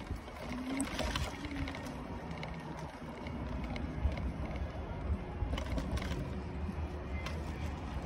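Scooter driving slowly over paved road: a steady low motor hum and tyre rumble, with a few scattered clicks.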